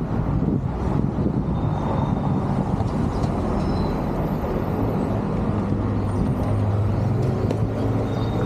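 Steady low rumble of a moving vehicle, even and unbroken.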